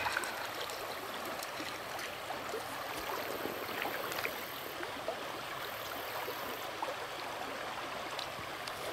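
Shallow river running steadily over gravel, with small splashes and ticks of water.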